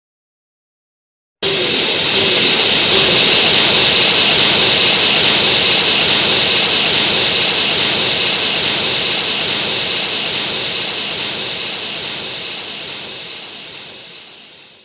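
King Ghidorah sound effect from the 1991 Godzilla film: a loud rushing hiss that starts suddenly after about a second and a half of silence, then slowly fades out.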